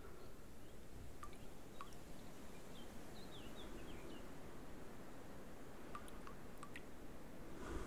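Water dripping from the wet straw eave of a thatched roof: single drops land here and there over a faint steady hiss, two in the first two seconds and a cluster of three about six to seven seconds in.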